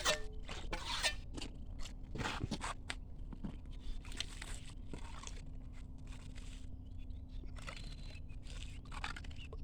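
Shovels scraping and crunching through gravel or concrete mix in irregular strokes, over a faint steady hum.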